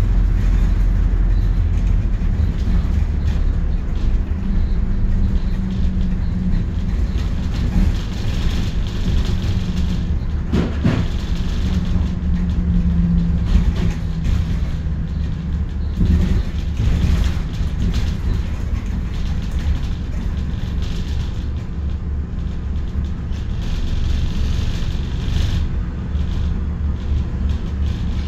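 A bus in motion, heard from on board: a steady low engine rumble and drone, with a few knocks and rattles from the body, the sharpest about eleven seconds in and again around sixteen seconds.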